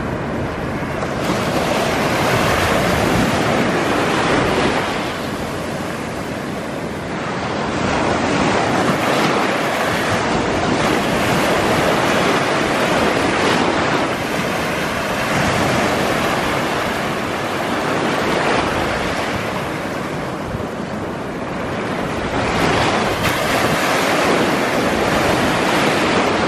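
Surf washing along the shore, a continuous rushing that swells and eases every several seconds.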